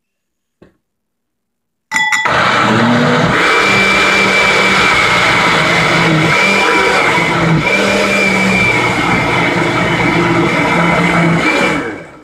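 Countertop blender switched on about two seconds in, with a short clatter as it starts, then running steadily with a high whine for about ten seconds as it purées tofu, water and seasonings into a thick gravy, before being switched off near the end.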